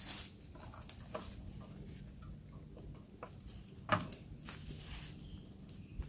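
Scattered light clicks and rustles of hands handling woven wire fencing and a strap, the sharpest click about four seconds in, over a faint steady low hum.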